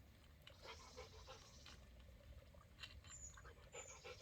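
Near silence: faint scattered rustles and ticks, with two brief high chirps about three and four seconds in.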